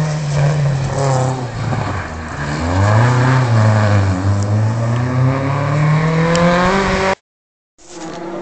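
Rally car engine revving hard through its gears: the pitch dips for a gear change about two seconds in, then climbs and holds as the car pulls away. The sound breaks off abruptly near the end.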